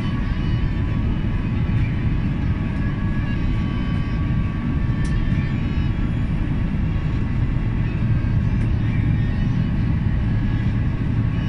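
Airliner cabin noise in flight: a steady low roar of jet engines and rushing air, with a faint steady whine above it.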